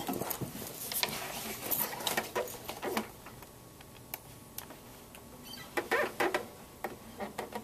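Handling noise: clicks, knocks and rustles as the camcorder and an acoustic guitar are moved into position. It comes as a burst in the first three seconds and another near the end, with a quieter spell between.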